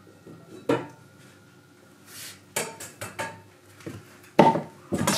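Black frying pan clanking as it is lifted and handled with a gloved hand: a string of sharp metallic knocks, the loudest a little past four seconds in, with a brief scrape just after two seconds.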